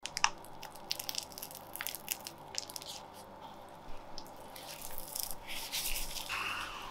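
Plastic crinkling and crackling as a piping bag and then plastic wrap are handled by gloved hands: scattered sharp clicks at first, then a denser rustle that grows louder near the end as the wrap is rolled and twisted tight.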